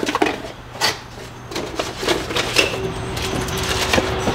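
Small parts and their packaging being handled: a string of irregular clicks, taps and rustling.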